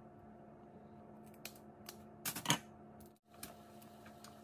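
Boiled crawfish shells being cracked and peeled by hand: scattered sharp clicks and crackles, with the loudest cluster about halfway through, over a faint steady hum.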